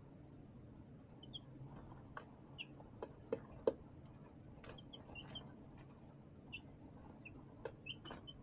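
Baby chicks peeping now and then in short, high chirps, among faint sharp taps and clicks, the loudest two a little after three seconds in.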